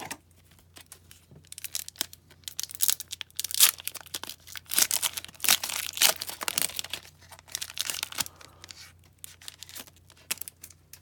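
Foil wrapper of a hockey card pack being torn open and crinkled by hand, a run of crackly tearing and crumpling, busiest in the middle and dying away near the end.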